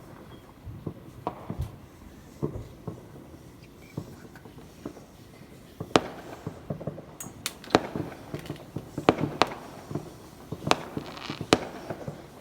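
Fireworks going off in sharp, irregular bangs. They are sparse at first, then come thick and loud from about halfway through.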